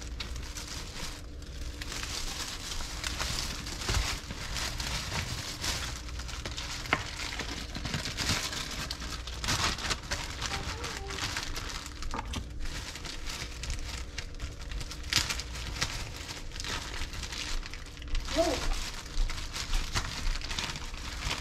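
Off-camera kitchen handling noises: a steady rustling and crinkling with scattered small clicks and knocks.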